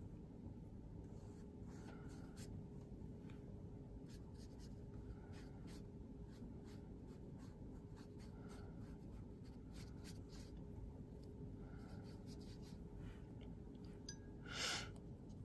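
Faint strokes of a paintbrush on watercolour paper, scattered light brushing over a steady low hum, with one brief louder sound near the end.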